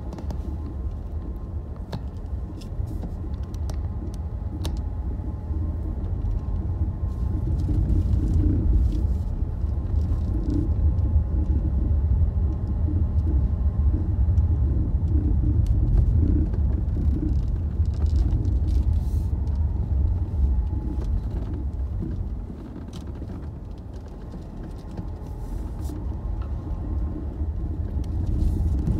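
Car cabin noise while driving over a rutted dirt road: a steady low rumble from the tyres and suspension, with scattered knocks and rattles over the bumps. It grows louder from about seven seconds in and eases for a few seconds near the end.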